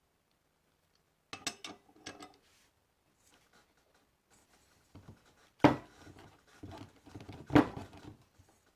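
Metal tools and parts clicking and rattling on a lathe headstock, then two sharp metallic knocks about two seconds apart, each with a short ring, as a part is worked loose from the spindle.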